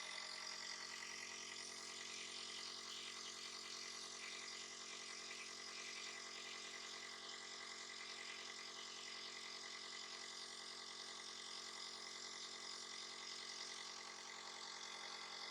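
A small motor running steadily with a hum and an airy hiss, unchanging throughout.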